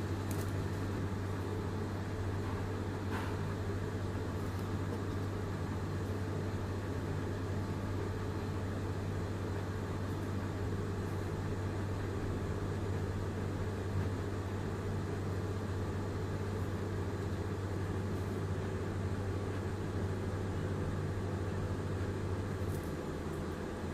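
A steady low mechanical hum, like a motor running, with a faint tick or two; the hum shifts slightly near the end.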